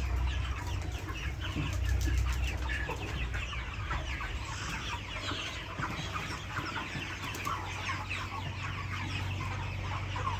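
A large flock of 42-day-old broiler chickens clucking and chirping, many short calls overlapping continuously, over a steady low hum.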